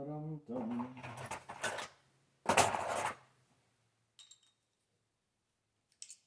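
A man's wordless voice, murmuring or humming, for the first two seconds, then a short loud rushing noise about two and a half seconds in, followed by two faint clicks of small parts being handled.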